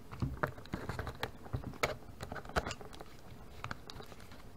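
Knife cutting open a small cardboard retail box that is glued shut, with irregular clicks and scrapes of the blade and the card. The louder clicks fall about two and two and a half seconds in.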